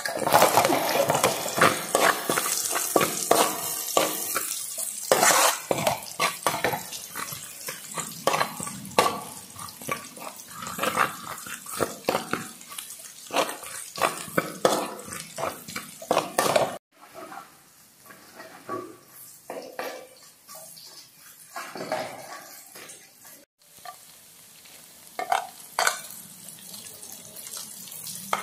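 Metal spatula scraping and clanking against a metal wok while minced aromatics sizzle in hot oil. The sound drops suddenly about 17 seconds in, leaving a quieter sizzle with occasional scrapes.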